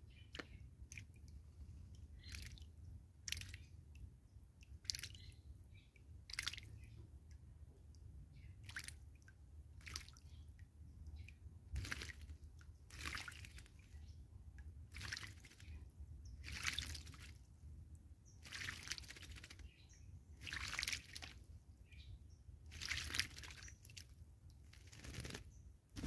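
A Cape starling bathing in shallow water, splashing in short bursts every second or so, with longer flurries of splashing in the second half.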